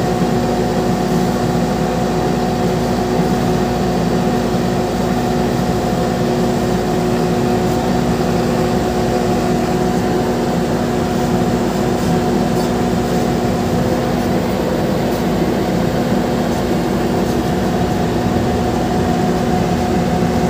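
Engine of a vehicle carrying the camera, running steadily at constant speed: an unchanging drone with several fixed tones over rumbling road noise.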